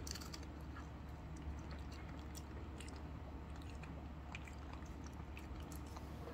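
A Shih Tzu chewing a crunchy dog biscuit, with irregular crisp crunches and bites throughout.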